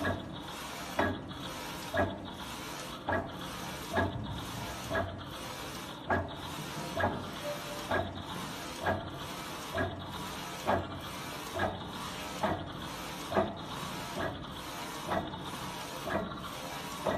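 Flatbed DTG printer running a print job, its double-head print carriage shuttling back and forth across the platen: a steady mechanical whir with a sharp knock about once a second.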